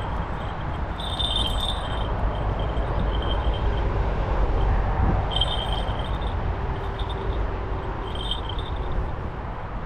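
Wind rumbling on the microphone, with small bells jingling in short bursts a few times.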